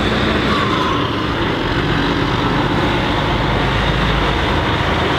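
Truck engine running, a loud steady drone that holds level throughout.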